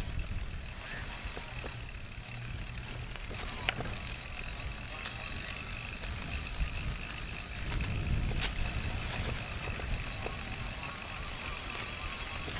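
Electric recumbent trike riding over rough dirt ground: a continuous low rumble of tyres and wind on the mounted microphone, with a few sharp knocks and rattles from the frame and solar-roof mounting as it goes over bumps. A faint, steady high whine runs underneath.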